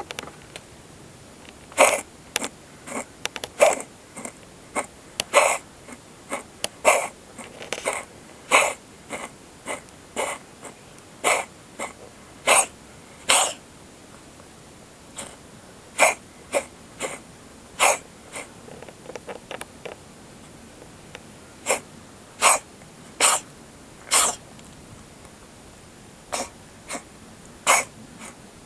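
Siamese cat coughing over and over: dozens of short, sharp hacking coughs in irregular runs, broken by pauses of a second or two. A strange-sounding cough.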